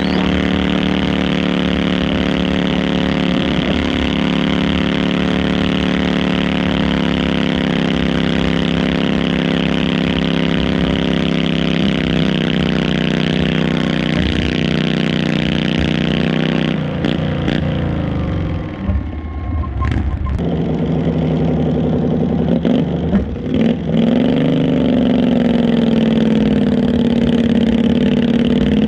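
Stock altered garden tractor engine running hard and steady under load as it drags the pulling sled, falling away about seventeen seconds in. After a few seconds of broken, uneven sound, a second garden tractor's engine starts its pull, its pitch dipping and then climbing near the end.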